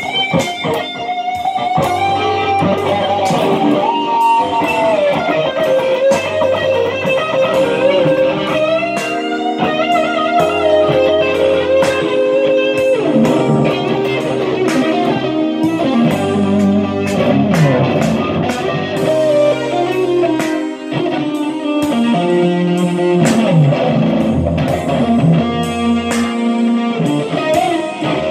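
Les Paul electric guitar played through a small Fender Champ amp, improvising lead lines with string bends and slides. Held bass notes and chords sound underneath.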